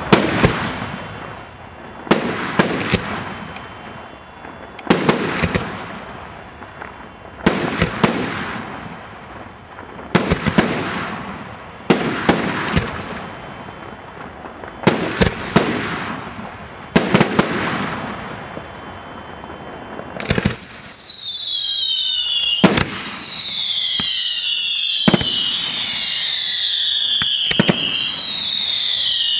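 Aerial firework shells bursting: sharp bangs about every two to three seconds, some in quick pairs, each trailing off into crackle. About twenty seconds in, a dense layer of whistles falling in pitch takes over, with a few more bangs among it.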